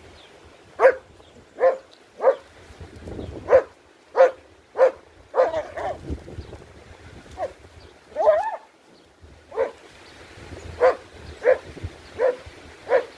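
A dog barking repeatedly, about a dozen short sharp barks roughly half a second to a second apart. Twice, in the middle, the barks give way to a longer wavering whine-like yelp.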